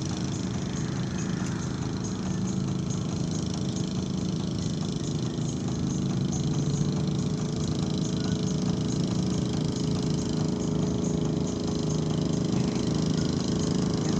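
An engine running steadily at an even pitch, a low drone.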